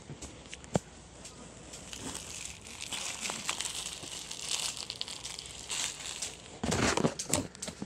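Plastic grocery packaging crinkling and rustling in a shopping cart, with a sharp click a little under a second in and a louder burst of rustling near the end.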